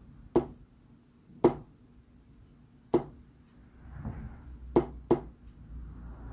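Five sharp, unevenly spaced clicks of small steel screws being set down on a hard tabletop, the last two close together.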